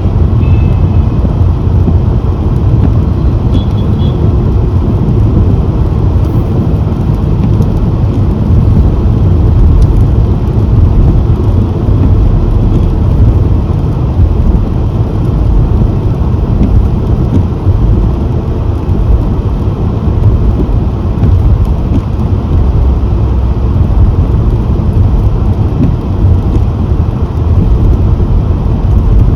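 Steady, loud low rumble of a car driving: road, tyre and engine noise with a fainter hiss above it.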